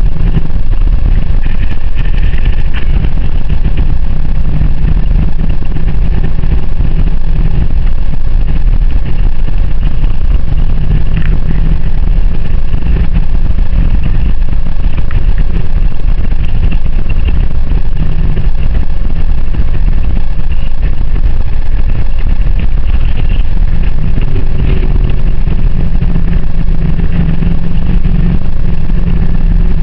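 Car engine and road noise while driving: a loud, steady drone with a low engine hum that swells slightly now and then.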